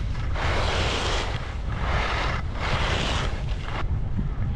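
Skis scraping over hard, icy snow through three turns, each turn a hiss of the edges about a second long, over a steady rumble of wind on the microphone.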